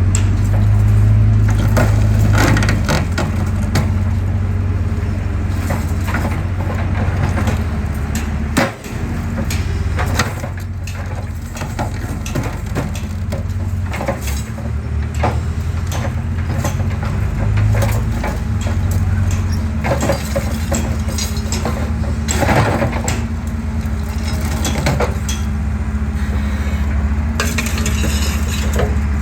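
Excavator crushing concrete: irregular cracking and crunching of breaking concrete over the steady drone of the machine's diesel engine.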